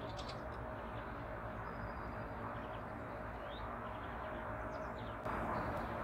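Small songbirds at a winter feeding station giving a few faint, short chirps, one of them a quick upward sweep, over a steady background hiss. About five seconds in, a louder rush of noise sets in.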